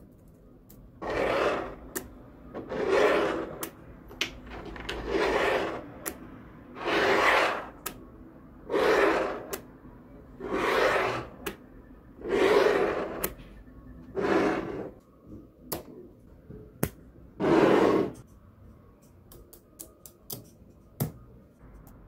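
Small neodymium magnetic balls handled in sheets: about nine rasping scrapes, each about a second long and roughly two seconds apart, as the sheets are worked against each other and the table. Sharp clicks of single balls snapping together come in between and after the scrapes.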